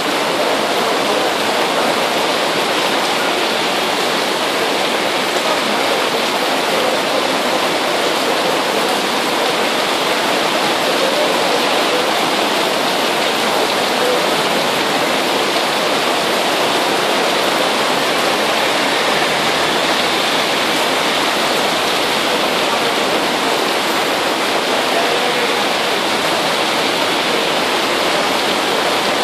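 Heavy rain pouring steadily onto a wet street, a dense, even hiss of downpour.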